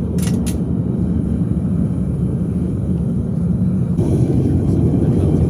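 Burner firing into a homemade metal-melting furnace, a steady low rumble that gets a little louder about four seconds in. Two light clicks come right at the start.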